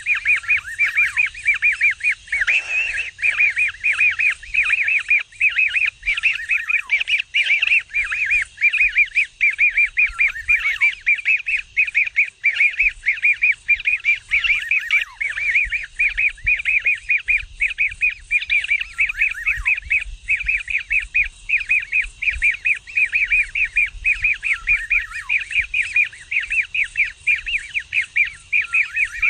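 Kingfisher chick giving a continuous string of short, harsh begging chirps, several a second and without pause.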